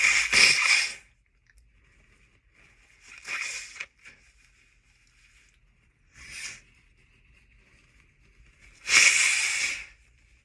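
Stifled sneezes brought on by sniffed chhinkni (sneezing powder), in four short bursts: a loud double one at the start, a shorter one about three seconds in, a brief one around six seconds, and a long final one near nine seconds.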